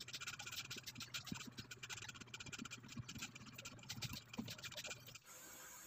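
Soldering iron tip on a circuit board's solder joints, giving a faint rapid crackling and scratching while it melts the solder to remove a capacitor. The crackling stops about five seconds in.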